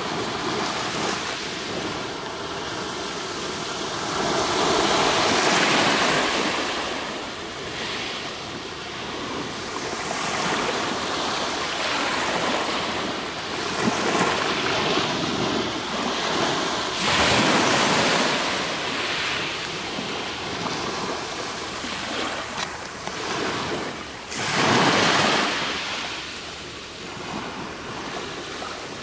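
Small waves breaking and washing up over a pebble beach. There is a steady hiss of moving water and pebbles, with three louder surges: about five seconds in, around seventeen seconds, and near twenty-five seconds.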